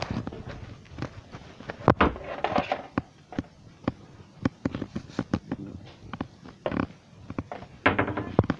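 Irregular knocks, taps and rustling close to the microphone, typical of a phone being handled and moved about. The sharpest knock comes about two seconds in, and a denser cluster of knocks comes near the end.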